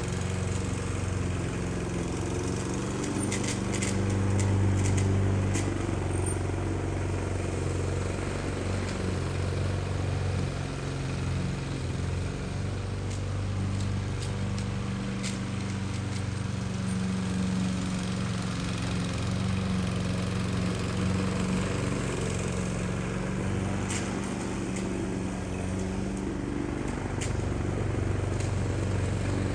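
Small petrol engine of a grass cutter running steadily, its speed rising and easing slightly, with a few faint ticks.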